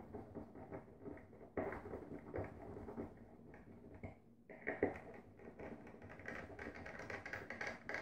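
Light taps, clicks and rustling of hands working a light switch into its wall box, with a couple of sharper knocks and sleeve rubbing close to the microphone.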